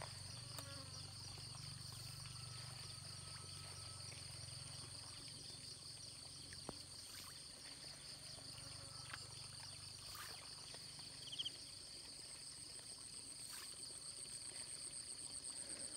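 Faint, steady insect chorus: two high, finely pulsing trills that run on without a break, with a few faint ticks.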